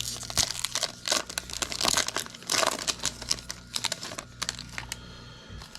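A hockey card pack's wrapper being torn open and crinkled by hand, an irregular run of crackling and rustling, busiest in the first four seconds and tapering off near the end.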